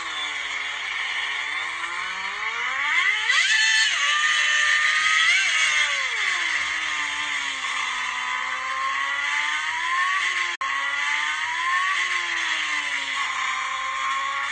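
Motorcycle engine revving. Its pitch sinks at first, climbs sharply about three seconds in, then drops low and rises and falls gently a few more times as it runs.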